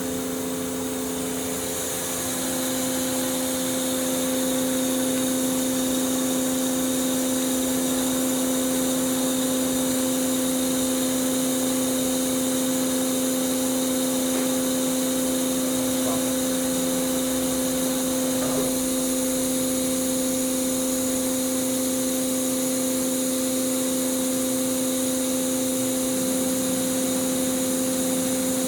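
Kitamura Mycenter 3Xi machining center running, a steady mechanical hum and whine with a hiss over it, getting slightly louder about two to four seconds in and then holding steady.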